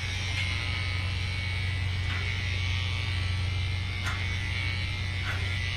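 Electric dog grooming clippers running with a steady buzz while clipping a dog's coat short.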